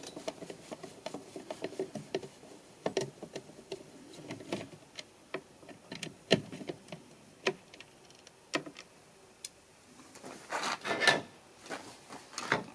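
Small scattered clicks and taps of a magnetic Pozidriv screwdriver working the screws out of a car wing-mirror's plastic housing, with a short stretch of scraping and handling noise near the end.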